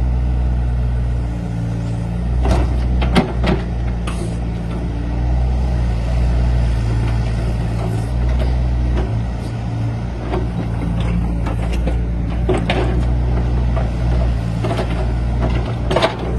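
Excavator's diesel engine running steadily, its note shifting as the load changes, with several sharp knocks, including a cluster about three seconds in and a pair near the end.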